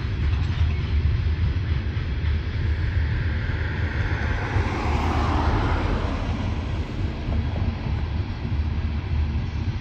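Steady low rumble of a coal train's hopper cars rolling past. Midway through, a rushing sound swells and fades.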